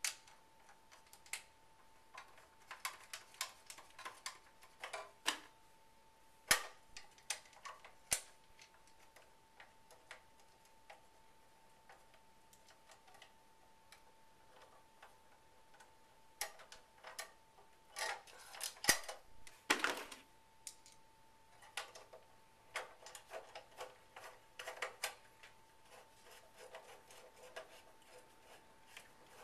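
Irregular small metal clicks and taps from a Phillips screwdriver and screws being handled and driven into a conveyor power supply's mounting. The clicks come in clusters with quieter gaps between. A faint steady high hum runs underneath.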